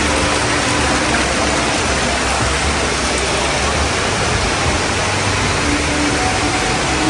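Steady rushing and splashing of water churned by fountain jets in an indoor pool.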